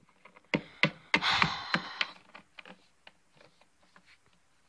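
Small plastic Littlest Pet Shop figurines tapping and clicking on a tabletop as they are moved by hand, with a brief rustling hiss about a second in. Fainter ticks follow.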